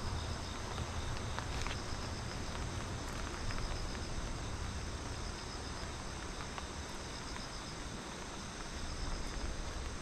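Insects singing in a steady chorus of rapid, evenly repeating high chirps, over a low rumble of wind on the microphone.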